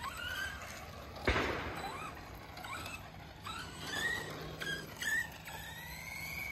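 Electric motor of a radio-controlled dirt modified car whining up and down in pitch in short bursts as the throttle is blipped, ending in a longer rising whine as it speeds up. A single sharp knock about a second in.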